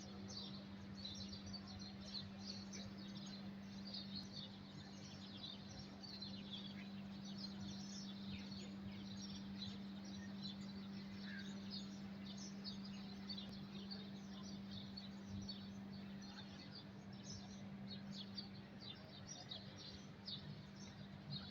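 Many small birds chirping and twittering faintly and continuously, with a steady low hum underneath.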